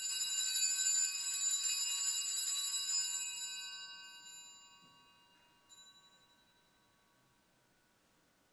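Altar bells rung at the elevation of the chalice during the consecration: a bright ringing of several high tones that holds for about three seconds and then dies away, with a faint further ring about halfway through.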